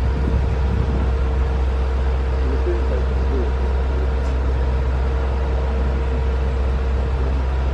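Heavy machine's engine running steadily: a low, even drone with a steady whine above it. Faint voices in the background.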